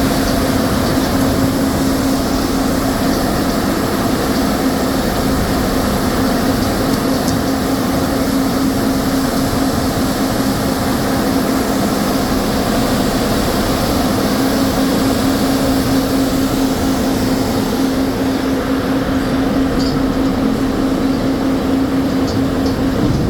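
Sawmill machinery running: a loud, steady din of mixed mechanical noise with a constant hum.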